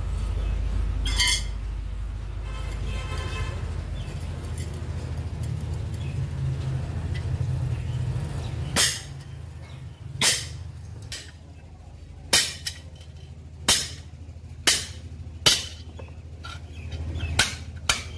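Hammer blows on a small steel disc lying on a round steel anvil block: a sharp metallic strike about a second apart through the second half. Under the first half runs a steady low hum that fades out.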